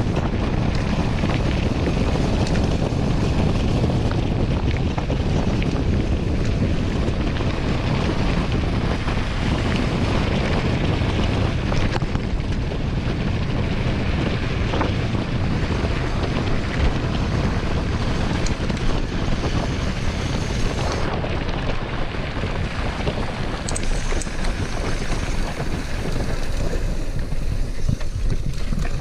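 Wind buffeting the microphone of a bike-mounted camera on a fast mountain-bike descent, with tyre rumble and small rattles from the bike on the rough dirt road.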